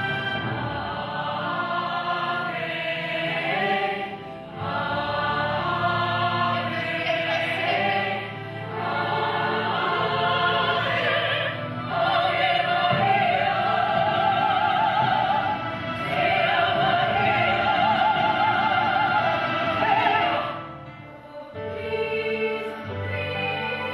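Music: operatic singing with strong vibrato over accompaniment, with long held high notes in the middle and a brief drop in level a few seconds before the end.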